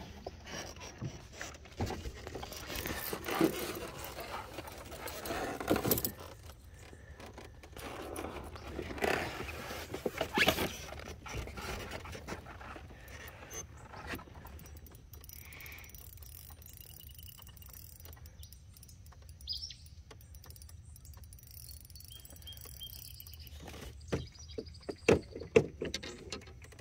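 Scattered clicks, scrapes and light rattles of a fishing reel and tackle being worked while a hooked catfish is fought, with a few louder knocks over a faint low hum.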